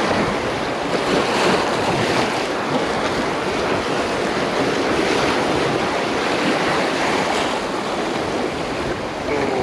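Surf washing and breaking over jetty rocks, a steady rush of water, with wind on the microphone.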